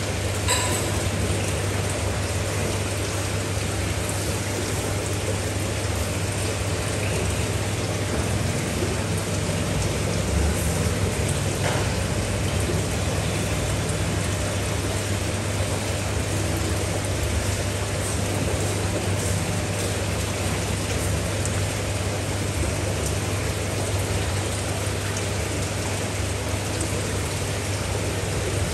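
Steady rush of splashing water over a low, constant hum, the sound of a fish tank's pump and filter water running continuously.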